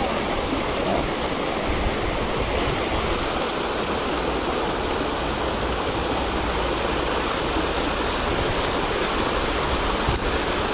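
Steady rush of flowing river water at an even level.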